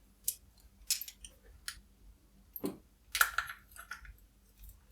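Scattered light clicks and taps of paintball marker parts being handled: the EMF200 handguard and barrel nut. A few single clicks, then a quick cluster about three seconds in.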